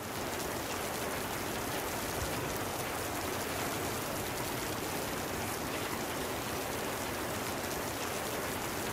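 A steady, even hiss like falling rain, holding one level throughout.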